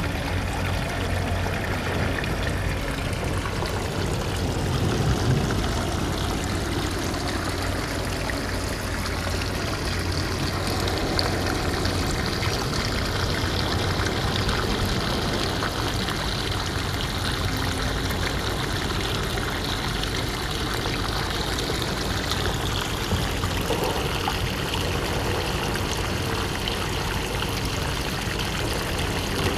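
Shallow seawater trickling and washing over pebbles in a low-tide pool, a steady watery rush with a low rumble underneath.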